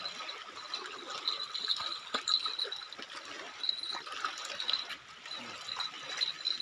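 Small waves lapping and trickling against a rocky lake shore, a steady fluttering wash with a few light knocks.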